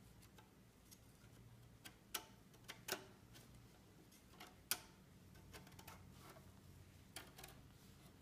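Scattered light, irregular clicks and ticks of a metal palette knife tip working under loose brass marquetry elements, against near quiet; the three sharpest clicks fall about two, three and nearly five seconds in.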